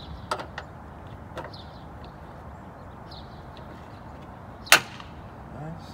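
Plastic retaining clips of a Dodge Charger's stock trunk spoiler being worked loose by hand: a few light clicks, then one sharp snap about three quarters of the way through as a clip pops free and the piece comes off.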